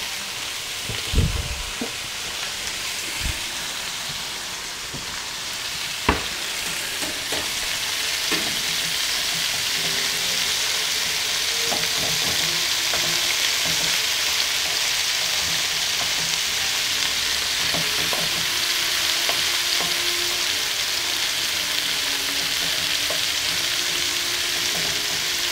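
Sliced zucchini frying in oil in a pan, a steady sizzle that grows a little louder about eight seconds in, while a wooden spoon stirs and turns the slices. A few sharp knocks come in the first six seconds.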